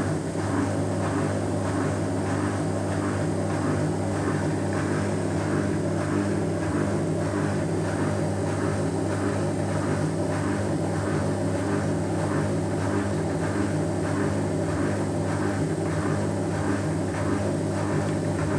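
Ariston washing machine's drum turning under its newly fitted motor, a steady hum with a regular pulse about twice a second as the machine builds toward spin speed. It runs without the rumbling of its old drum bearings, which have just been replaced.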